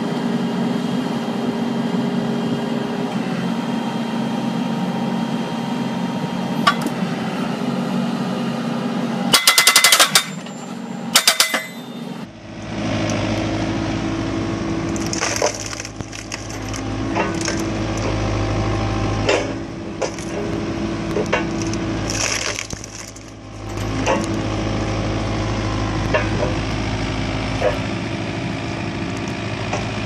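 Excavator-mounted hydraulic log splitters forcing logs apart, with wood cracking and splintering over the steady hum of the machines' engines. A burst of very loud sharp cracks comes around ten seconds in, and at about twelve seconds a heavier, deeper engine rumble takes over, broken by scattered cracks as the wood splits.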